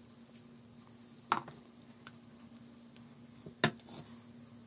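A spatula scooping thick, hot cornflour paste out of a non-stick frying pan, with two sharp knocks of the spatula against the cookware, one about a second in and one near the end.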